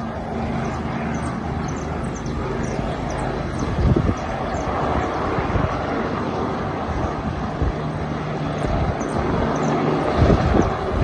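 Helicopter running steadily: a continuous engine and rotor hum with level low tones. There are low thumps about four seconds in and near the end.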